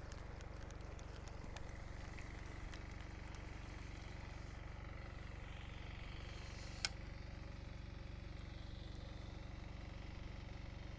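Quiet outdoor ambience with a steady low hum, broken by a single sharp click about seven seconds in.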